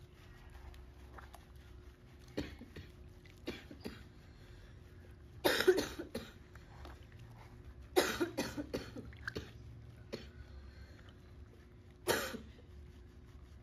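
A few short bouts of coughing, each made of one or several quick coughs. The loudest come about halfway through and again a couple of seconds later, with a last one near the end.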